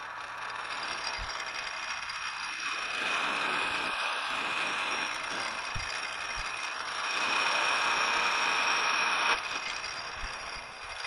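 Precision Matthews 1127 metal lathe running with the tool taking a turning cut along a spinning metal bar: a steady machining hiss with a high whine. The cutting noise drops off sharply about nine seconds in.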